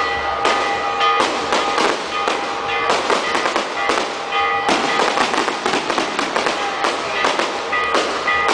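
Fireworks going off in rapid succession: many sharp bangs and crackles, several a second, without a break.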